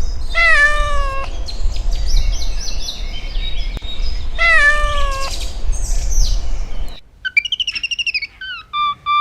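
A cat meowing twice, each meow a long falling call, with birds chirping between them over a low rumble. The rumble and the meows stop suddenly, and quick bird chirps and short repeated notes follow.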